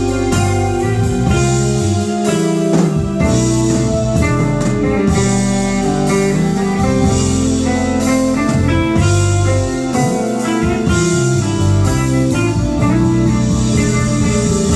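A live band playing a groove, with electric guitar lines over bass notes and a drum kit.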